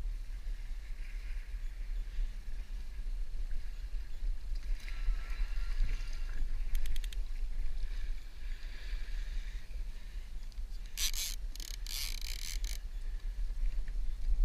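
Water lapping and sloshing against a fishing kayak's hull over a steady low rumble, with a quick run of clicks about halfway through and a burst of loud splashing near the end.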